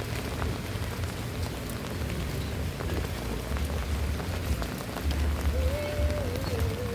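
Steady rain falling on surfaces, with scattered taps of drops and a low rumble underneath. Near the end, a faint wavering tone sounds over the rain.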